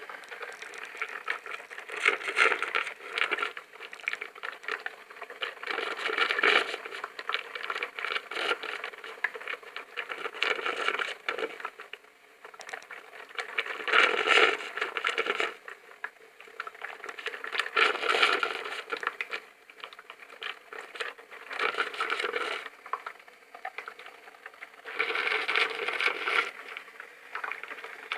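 Tea/coffee machine sputtering and crackling in irregular bursts lasting a second or two, coming back every few seconds.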